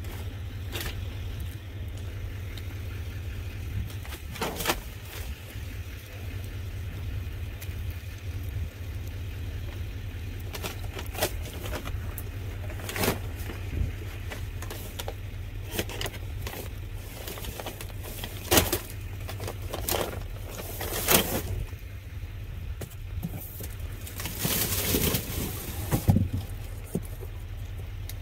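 Rummaging through cardboard produce boxes and plastic bags in a dumpster: irregular rustles, crinkles, scrapes and knocks, the loudest near the end, over a steady low rumble.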